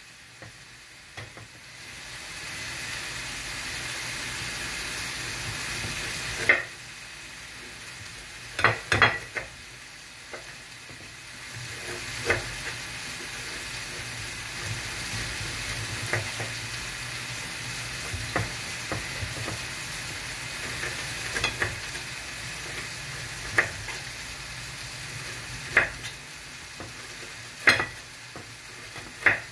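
A kitchen knife slicing through a cooked octopus and knocking against the wooden board underneath, about a dozen sharp knocks at irregular intervals, over a steady hiss.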